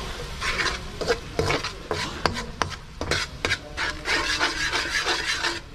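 A cooking utensil stirring and scraping through a sizzling sauce in a pan, with many quick scrapes and knocks against the pan over a steady hiss.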